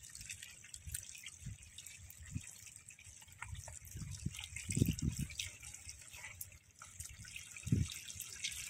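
Muddy water trickling and dripping over a bamboo screen into a basket of small fish, with small splashes throughout. Dull wet squelches of hands working mud, the loudest about five seconds in and again near the end.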